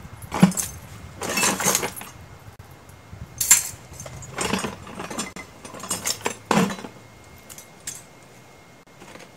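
Metal trapping gear jangling and clinking as it is handled in a plastic bucket, in about six separate short bursts.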